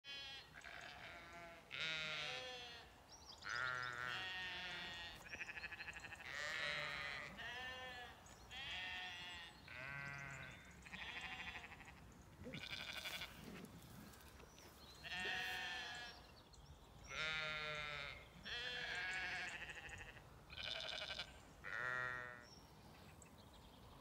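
A flock of Zwartbles sheep bleating, a dozen or so wavering calls one after another every second or two, some higher-pitched than others.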